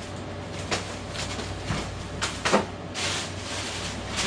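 Items being handled and taken out of a suitcase: rustling with several short knocks, the loudest about two and a half seconds in, over a steady low hum.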